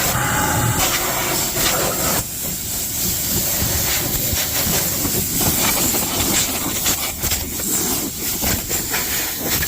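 Compressed nitrogen blowing out a rooftop HVAC unit: a loud, rushing hiss of gas from a nozzle, swelling and dipping in strength.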